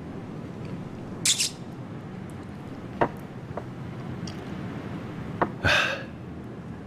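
A man drinking from a small ceramic wine cup and setting it down on a wooden table: a short breathy sip about a second in, then light knocks of the cup on the wood, over a steady low hum.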